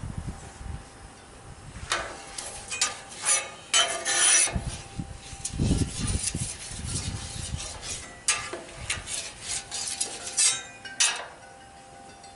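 Metal spatulas scraping and clanking on a steel flat-top griddle, spreading cooking oil across it, in a run of short scrapes and knocks with a couple of dull thuds near the middle.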